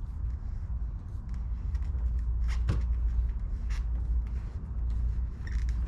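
Car door trim being worked loose and handled: scattered clicks and knocks of plastic and metal trim parts, the sharpest about two and a half seconds in, over a steady low rumble.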